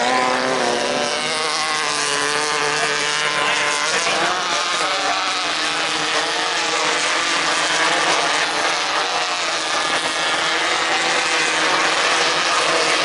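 Several 1600cc off-road race buggies, air-cooled VW flat-four engines, racing through a corner, their engines revving up and down and overlapping.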